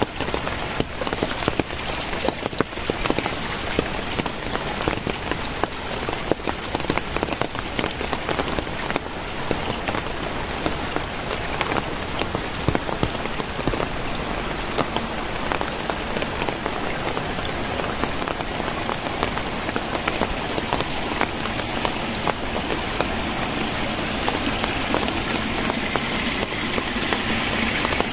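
Very heavy rain pouring down: a dense, steady hiss full of sharp drop taps. Near the end it turns into a smoother, steadier rush.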